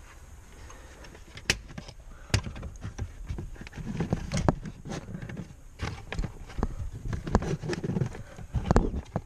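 Irregular clicks, knocks and dull thuds of plastic interior trim being handled and pressed into place: a car's passenger-side kick panel being refitted in the footwell. The knocking gets busier about four seconds in.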